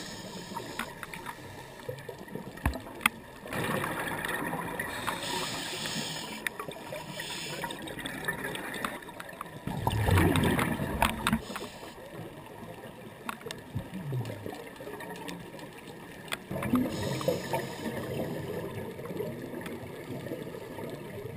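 Underwater audio of scuba breathing through a regulator: bursts of exhaled bubbles gurgling and rumbling about every six or seven seconds, the loudest near the middle, over a steady water hiss.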